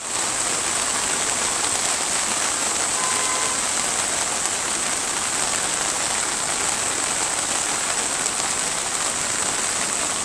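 Heavy rain falling steadily, a constant even hiss of water on a flooded road surface.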